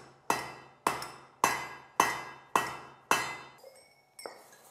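Hand hammer striking a dome-shaped top tool set on a glowing iron disc on the anvil: six ringing metal blows about half a second apart, each fading before the next, as the hot iron is dished into the bell of a doorbell. Near the end there is a faint hiss as the hot iron is quenched in a wooden water tub.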